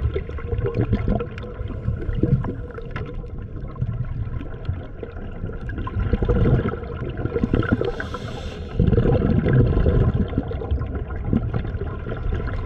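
Water gurgling and sloshing, dull and low-pitched, growing louder about two-thirds of the way through.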